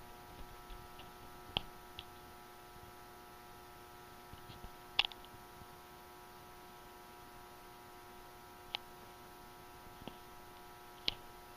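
A handful of light, scattered clicks and taps over a steady faint electrical hum.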